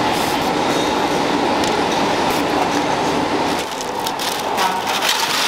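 Steady running noise of factory machinery. About three and a half seconds in it eases off and gives way to crisp crackling and rustling.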